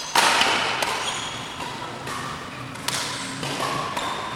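Badminton rally: a sharp racket strike on the shuttlecock just after the start, echoing in a large hall, followed by a few fainter knocks.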